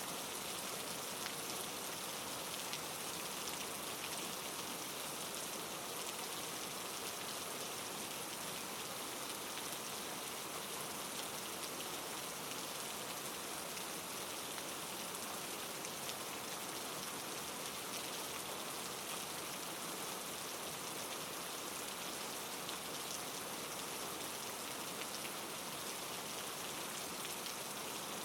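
Steady rain falling, played as a white-noise background track: an even hiss dotted with fine ticks of drops.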